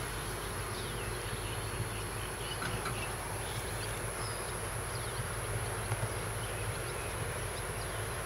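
Insects trilling in a steady high-pitched hum, with faint scattered chirps and a low rumble underneath.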